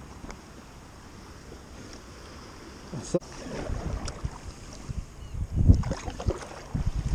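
Kayak paddle strokes in the sea: splashes and dull thumps as the blades dip and pull, starting about three seconds in, over light wind noise on the microphone.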